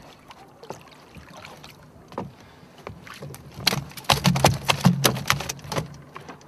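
A catfish held at the side of a small boat thrashes and splashes in the water, with knocks against the boat. The splashing is sparse at first and gets loudest and busiest in the second half.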